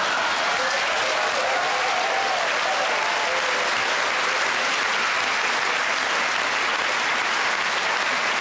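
A theatre audience applauding, steady clapping that holds at an even level throughout.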